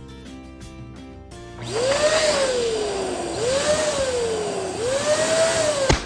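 Electric balloon pump running for about four seconds, starting about a second and a half in, its pitch rising quickly then sliding down three times. A sharp snap comes near the end. Background music runs underneath.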